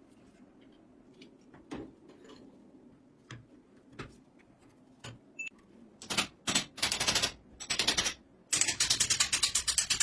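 A few light taps and clicks, then about six seconds in, bursts of very rapid, even mechanical clicking, well over a dozen clicks a second, three times in a row, the last cutting off suddenly.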